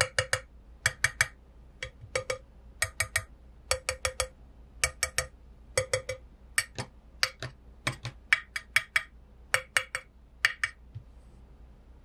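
Fingertips tapping on the Keychron Q1's aluminium case bottom, lined with a sheet of Poron foam: repeated quick groups of two to four light clinking taps, each with a short ring.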